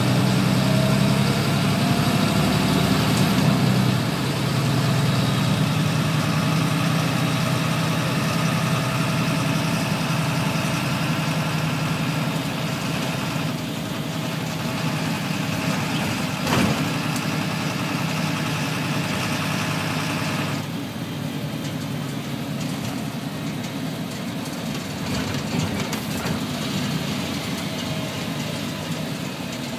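Cabin noise inside a city public-transport vehicle: a steady drive hum with rattles, a single knock about sixteen seconds in, and the higher part of the noise dropping away about twenty seconds in.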